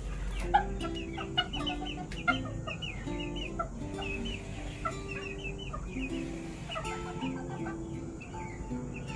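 Vietnamese northern bantam chickens, a rooster and hens, clucking over background music made of a run of held notes.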